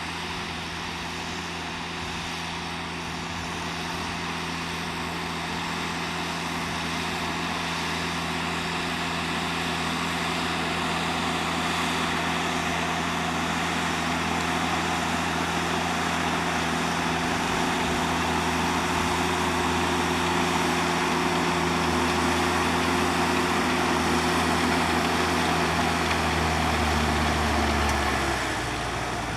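Diesel farm tractor working in the field, its engine running steadily and growing slowly louder, with the engine note dropping in pitch near the end.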